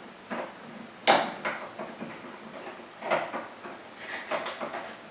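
Metal door hardware clinking and knocking as the handle set is worked loose and taken off a fiberglass entry door, with a sharp knock about a second in and several lighter clinks after.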